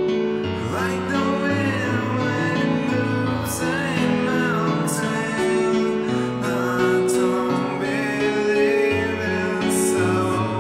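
A slow song: a voice singing in long, gliding phrases over held keyboard chords and a bass line that changes note every second or so.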